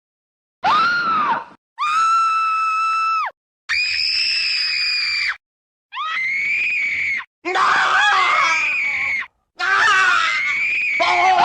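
A run of about six separate female screams, each one to two seconds long with short silent gaps between, starting about half a second in. The middle ones are held high and steady, and the last ones are rougher and wavering.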